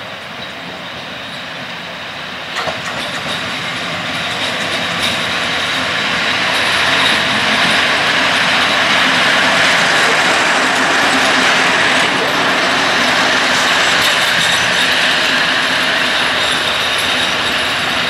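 An ET22 electric freight locomotive running light past at close range, its wheels running noisily over the rails. The noise grows louder as it approaches and stays loud through the second half as it passes and pulls away, with a single sharp knock about two and a half seconds in.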